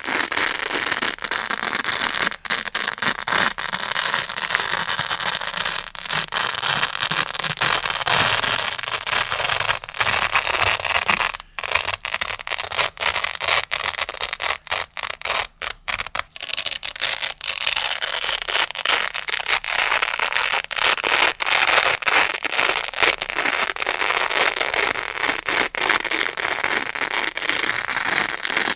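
Grey Velcro hook-and-loop pad crunching and crackling close to the microphone, a dense run of fine scratchy crackle. It breaks off briefly about 11 seconds in and several times around 15 to 16 seconds.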